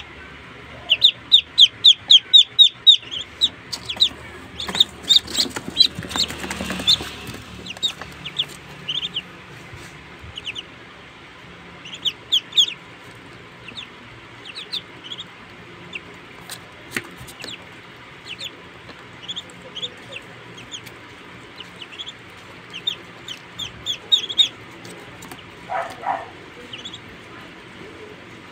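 A group of young ducklings peeping: short, high cheeps in quick runs of several a second, broken by pauses and single calls.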